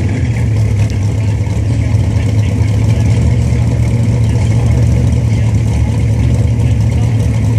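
Plymouth Superbird's V8 engine idling steadily.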